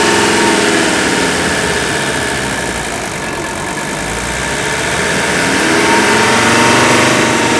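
Mercedes W123 300TD's five-cylinder turbo diesel running at a raised idle, its throttle held open by a zip tie while it runs on diesel purge cleaner. The engine note eases off about midway and then builds again toward the end.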